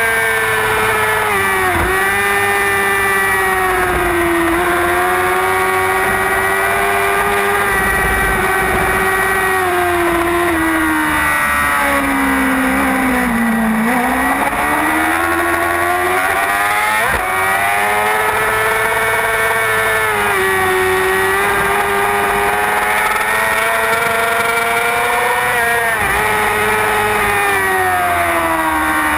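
Racing superbike engine at high revs, heard from a camera mounted on the bike with wind rushing past: the engine note climbs and then drops sharply at several gear changes. About halfway through it sags slowly to its lowest pitch, then climbs again.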